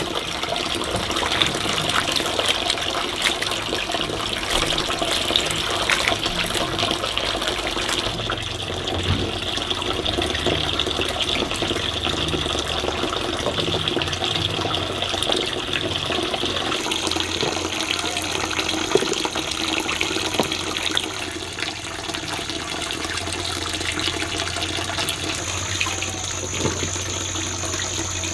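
Water running and splashing steadily as long green chili peppers are washed by hand in a plastic basin of water.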